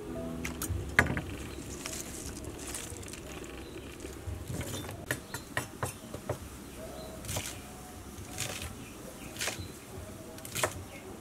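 Kitchen knife chopping garlic scapes on a cutting board: irregular sharp taps of the blade striking the board.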